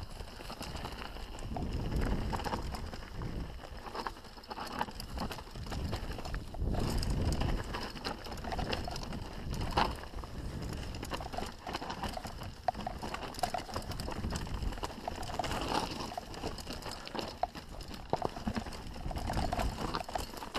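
Canyon Strive enduro mountain bike riding down a rocky dirt singletrack, heard on a GoPro: tyres rumbling over dirt and stones, with frequent clicks and rattles from the bike and wind on the microphone.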